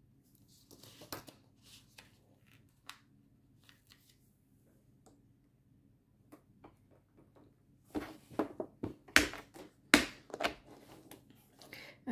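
Faint rustling and light clicks of small plastic bags of diamond-painting drills being handled, then, from about eight seconds in, a run of louder sharp clicks and knocks of clear plastic storage cases being picked up and set down.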